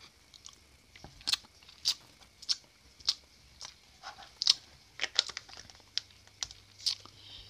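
Wet lip smacks and tongue clicks, about two a second, from someone tasting a milk-flavoured e-liquid he has just licked.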